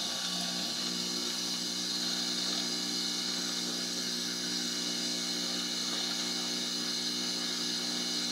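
Aoyue soldering smoke absorber's fan running steadily: an even airy hiss with a steady hum beneath it.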